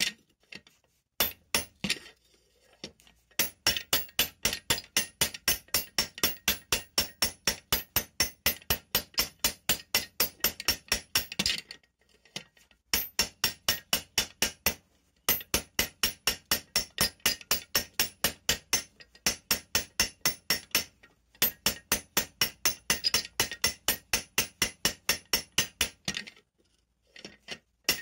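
Hand hammer striking a red-hot steel pin set in a steel fixture, heading it over like a rivet: rapid, regular metal-on-metal blows with a ringing clink, in runs of several seconds with short pauses between them.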